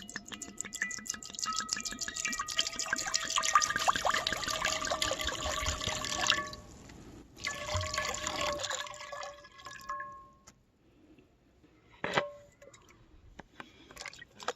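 Liquid pouring and splashing, with dense crackle, stopping about nine seconds in. A single sharp knock follows about three seconds later.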